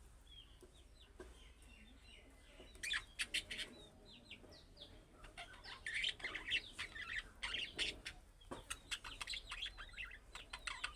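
Budgerigars chirping: many short, quick calls, sparse at first and growing busy from about three seconds in.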